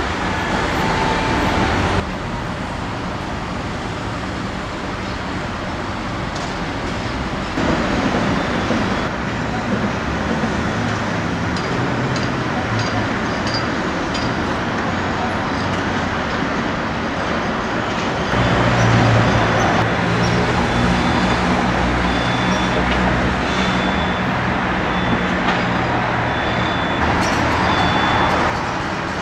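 Construction-site noise of heavy diesel machinery running, with traffic noise under it; a steady low engine hum comes in about two-thirds of the way through, and the overall sound changes abruptly several times.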